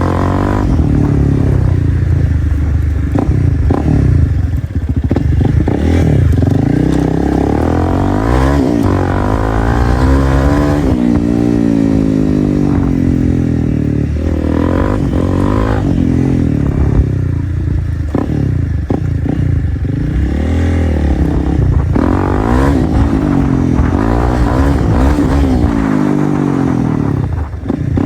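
Straight-piped 2025 Honda CRF300L single-cylinder four-stroke engine running under way, its pitch rising and falling again and again as the throttle is opened and closed.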